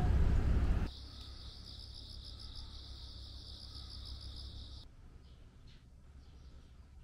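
Low vehicle rumble for the first second, then an insect trilling: a high, rapid, even pulsing that runs for about four seconds and cuts off abruptly, leaving faint quiet ambience.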